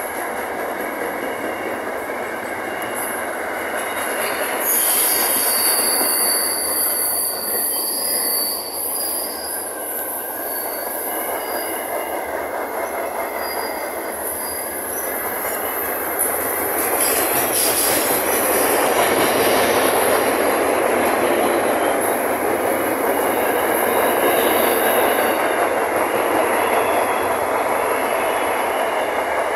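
Freight train wagons rolling past close by, their steel wheels running steadily on the rails. High-pitched wheel squeal comes and goes in the first half, and the running noise grows louder from about seventeen seconds in.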